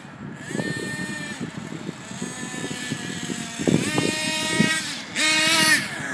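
Nitro RC buggy's small two-stroke glow engine revving up and down, high-pitched, with scattered knocks as the car bounces over the grass. The loudest, highest rev comes near the end.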